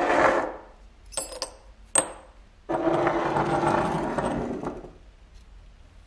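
Small metal lighter parts being worked with hand tools: a sharp scrape at the start, a few sharp metallic clicks, then a longer scrape of about two seconds.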